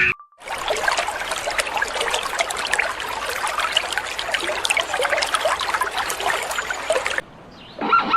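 Water trickling and splashing, a steady rush full of small spatters, ending suddenly about seven seconds in.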